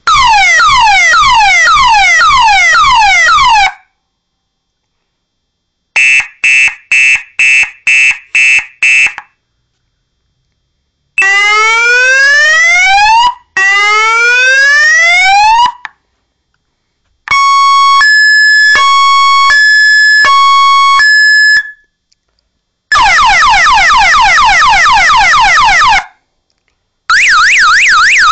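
12 V electronic vehicle siren, very loud, stepping through its tones with short pauses between: fast repeated falling sweeps, a string of seven short beeps, two slow rising wails, an alternating two-tone hi-lo, rapid falling sweeps again, then a fast up-and-down warble.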